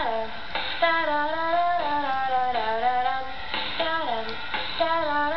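A woman singing a melody, holding notes and sliding between pitches, played back through a laptop's built-in speakers.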